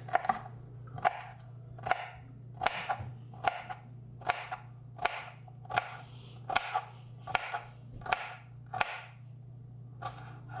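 Knife chopping a deseeded jalapeño pepper on a cutting board: a steady run of sharp knocks, about one every three-quarters of a second, stopping shortly before the end.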